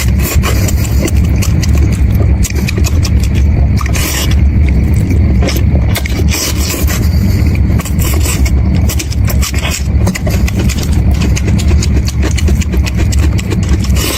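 Close-miked chewing of lamb brain wrapped in lamb tripe, with a steady stream of quick mouth clicks over a strong low rumble.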